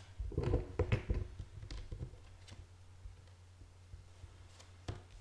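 Tarot cards being handled and laid down on a cloth-covered table: a cluster of soft taps and slides in the first second or so, then a few scattered ones, over a low steady hum.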